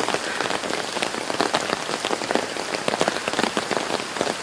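Heavy rain falling during a tornado-producing storm: a steady hiss, thick with many sharp taps of drops striking hard surfaces close by.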